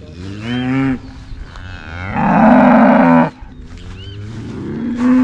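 Cattle mooing: a short moo, then a longer, louder moo about two seconds in, and another moo building near the end.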